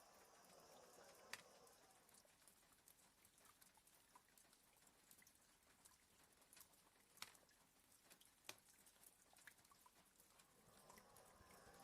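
Faint rain ticking lightly on a window, a few single drops sharper than the rest. A sleeping border collie's soft snoring breath fades away at the start and another breath swells up near the end.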